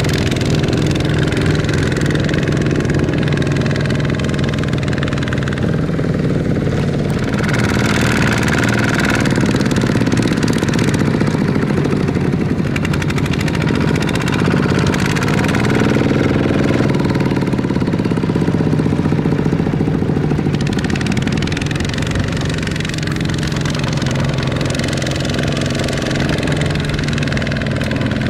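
Two-wheel walking tractor's single-cylinder diesel engine running steadily under load as it hauls a loaded trailer through mud. Its pitch sags and recovers a few times.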